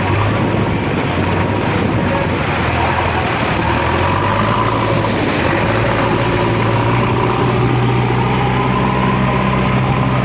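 Rushing floodwater churning through a swollen river, with a heavy engine running steadily underneath.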